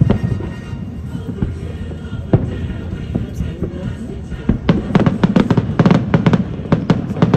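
Fireworks going off: a few separate bangs, then from about four and a half seconds in a rapid string of sharp cracks and bangs.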